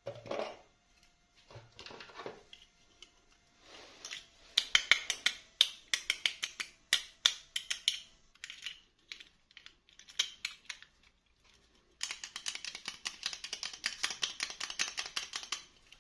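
Small plastic packaging and toy pieces being handled and opened: scattered light clicks and taps, then a dense crinkling rustle for the last four seconds.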